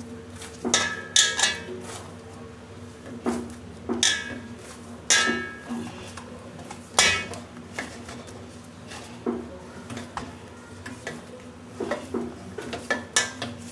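Dough being kneaded by hand in a metal plate: irregular knocks and clinks, sometimes two in quick succession, as the plate shifts and rings briefly under each press.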